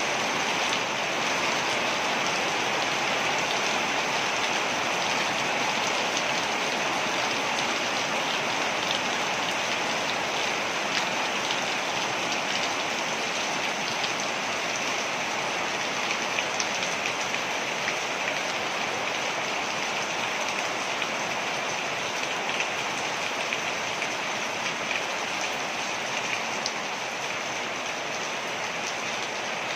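Waterfall: water falling and splashing in a steady, unbroken rush, with faint scattered droplet ticks.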